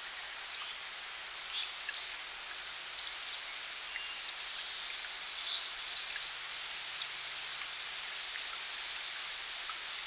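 Mountain spring water trickling steadily. Between about one and six seconds in, a scatter of short, high-pitched sounds rises above it.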